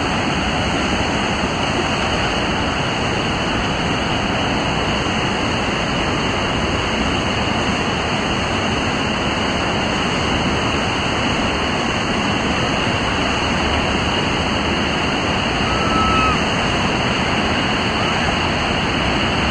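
Whitewater of Crystal Rapid on the Colorado River rushing in a loud, steady roar.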